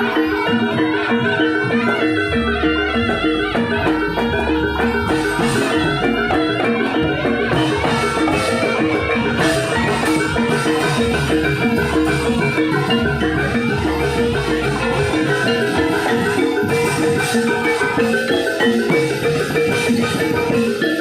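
Javanese gamelan music, with metallophones striking a fast repeating pattern over drums and regular low beats.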